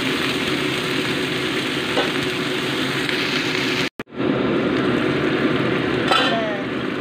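Seaweed sizzling and bubbling in garlic oil and sauce in a nonstick frying pan while a wooden spatula stirs it. The sizzle cuts out for an instant about four seconds in, then resumes.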